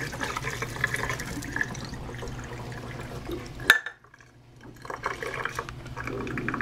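Boiling water poured from a pot, splashing over a ham on a wire rack and running into a sink. About halfway through there is one sharp click.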